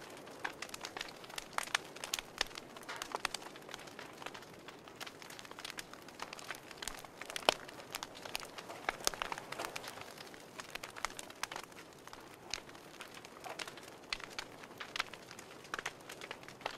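Wood fire crackling in a wood stove: irregular pops and snaps, with one louder snap about halfway through.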